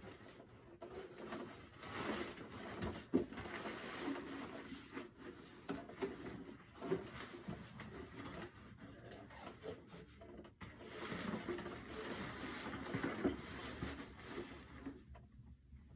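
Rustling and light plastic clicks and knocks from handling the parts of an animated Santa figure during assembly, with one sharper knock about three seconds in.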